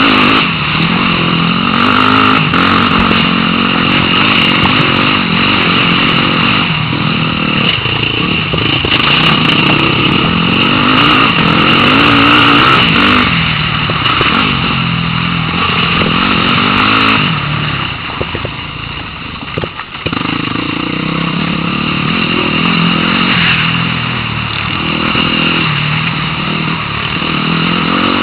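Off-road motorcycle engine running under constantly changing throttle on rough ground, its pitch rising and falling over and over. It drops off briefly about two-thirds of the way through, then picks up again.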